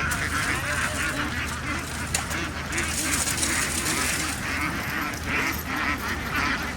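A large flock of domestic ducks quacking all at once, many calls overlapping into a continuous chatter with no pauses.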